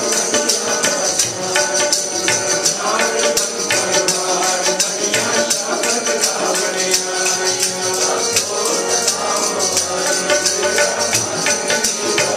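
Instrumental Sikh kirtan music: tabla with steady jingling percussion over held melodic tones, with no singing.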